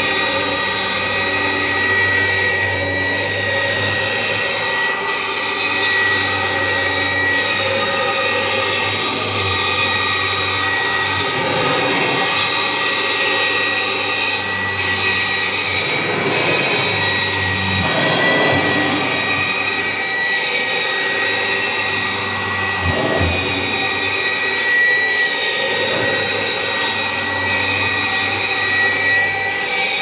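Kirby G4 upright vacuum with its 10-blade aluminum fan running steadily, with a high whine over a rushing hiss as it is pushed over carpet.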